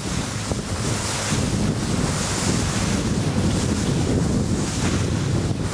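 Wind of about 20 knots buffeting the microphone in a steady low rumble, over the rush of choppy water and spray.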